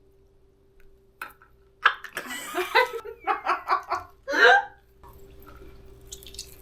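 A person laughing in a quick run of short breathy pulses for about three seconds, ending in one louder burst.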